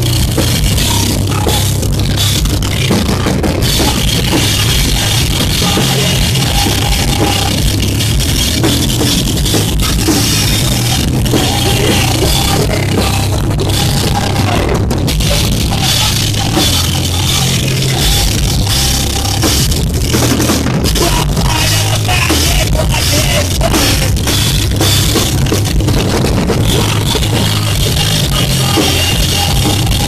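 A live rock band playing loud, steady and dense: guitars and bass over a drum kit with cymbals.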